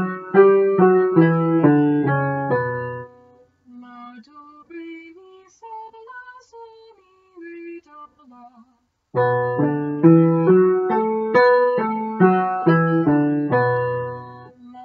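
Upright piano played in full, rhythmic chord patterns, which stop about three seconds in. A quiet single melody follows, stepping up and then back down for about five seconds. The piano chords resume about nine seconds in and stop just before the end.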